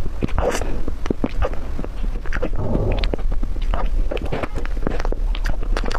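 Close-miked eating of a cream mousse cake: irregular lip smacks and mouth clicks of chewing soft cream and sponge, several a second, over a steady low hum.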